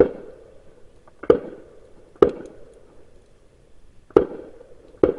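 A series of sharp knocks, five of them about a second or two apart at irregular spacing, each with a short ringing tail.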